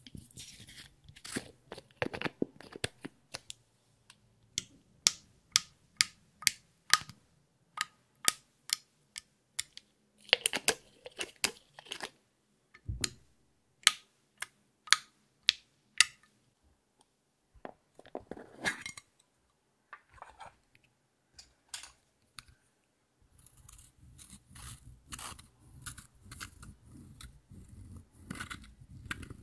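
Makeup being handled over a glass dish of clear slime: a run of sharp clicks and taps, with a low thump about halfway through. Near the end comes a steady scraping and crunching as a plastic tool crumbles pressed powder out of a compact.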